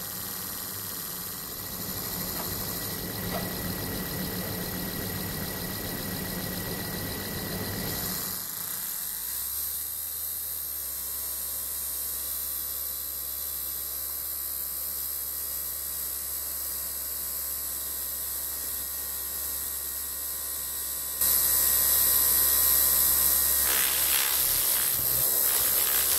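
Small brushed DC motor, powered from a bench supply, running with a paper strip spinning on its shaft. It speeds up as the voltage is turned up to about 12 volts, then runs steadily as a low hum. The sound gets suddenly louder about five seconds before the end.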